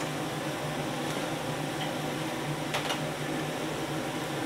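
Steady rushing noise of a commercial wok range running, its gas burners and extraction going, with a steady low hum underneath. A single light click sounds just under three seconds in.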